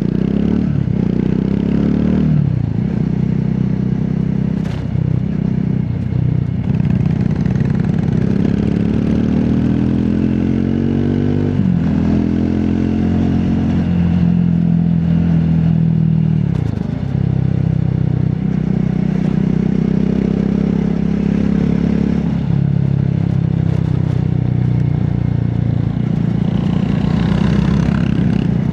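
Triumph Scrambler 400X's single-cylinder engine and exhaust running under way. Its pitch climbs under acceleration and drops back sharply several times at gear changes.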